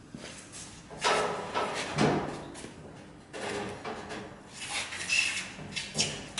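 Heavy equatorial telescope mount being moved by hand on its pier: a series of metal scrapes and knocks, about one a second.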